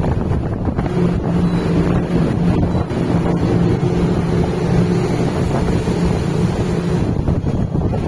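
Large ship under way at sea: a steady low engine hum under the rush of sea water along the hull, with wind buffeting the microphone.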